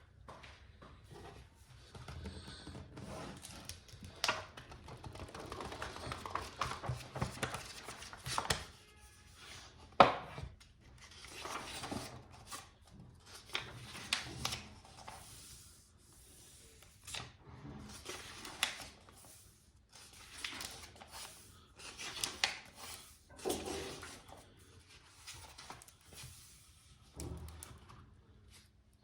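Packaging being handled and opened by hand: irregular rustling, scraping and tearing, with scattered knocks and a sharp click about ten seconds in.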